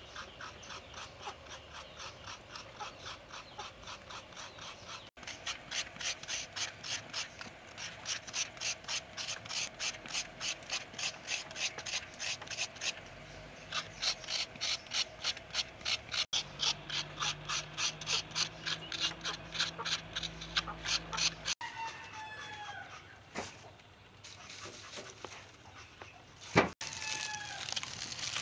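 Fresh coconut flesh being grated by hand: rhythmic scraping strokes, about two to three a second. Near the end the scraping stops, and a few short calls falling in pitch are heard, along with one sharp knock.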